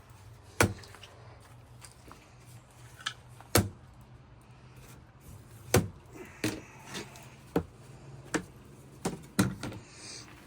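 Laminate vinyl flooring planks and tools knocking as a plank is fitted: about nine short, sharp knocks at irregular intervals, spaced out at first and coming closer together in the second half.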